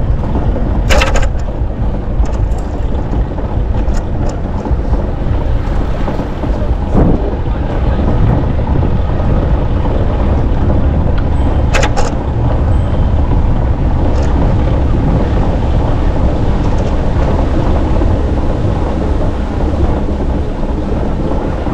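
Wind buffeting the microphone of a camera on a moving bicycle, a steady low rumble, with brief sharp noises about a second in and again about halfway through.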